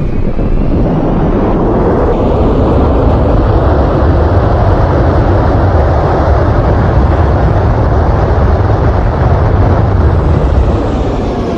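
Aircraft landing: a loud, steady rushing roar with deep rumble that swells over the first few seconds and eases near the end.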